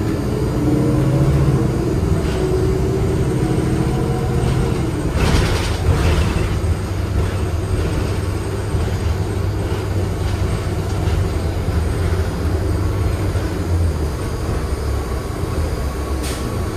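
Inside a 2016 NovaBus LFS CNG bus with a Cummins ISL-G 8.9 L six-cylinder engine: steady drivetrain rumble, with a whine that rises slowly in pitch over the first few seconds. A brief hiss comes about five seconds in.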